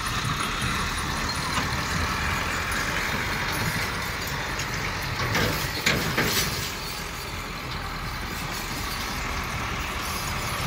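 Diesel engines of a Volvo EW145B wheeled excavator and a Doosan DX140 excavator running steadily as they dig, joined by a tractor pulling a trolley that drives up close. A sharp knock sounds about six seconds in.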